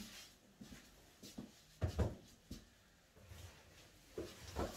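Handling noise at a wooden workbench: rustling and a few dull thumps as tree-climbing rope and gear are set down and picked up. The loudest thump comes about two seconds in, with two more near the end.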